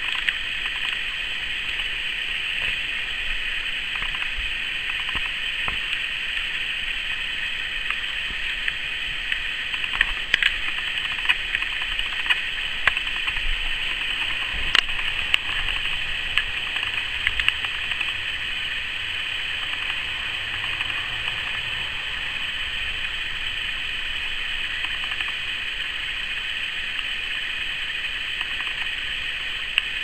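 A steady, high-pitched insect drone, typical of a rainforest cicada chorus, carries on throughout. Scattered light clicks and knocks come in the middle stretch.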